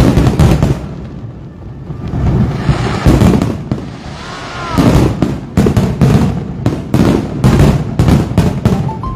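Fireworks bursting overhead, rumbling booms at first, then from about halfway a rapid volley of sharp bangs several times a second as the finale builds.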